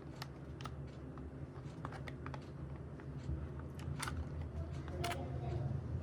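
Irregular light clicks and taps of hard plastic being handled, over a low steady hum.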